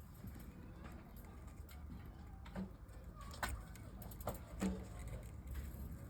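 A few light clicks and taps of small tools and parts being handled while soldering a battery connector, over a steady low hum.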